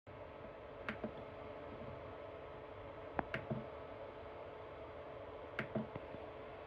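A steady machine hum with one steady tone, and a few sharp clicks, mostly in quick pairs or threes, about one, three and five and a half seconds in.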